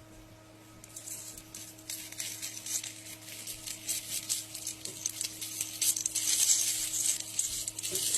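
A crackling, sizzling hiss that grows steadily louder, over a steady low electrical hum.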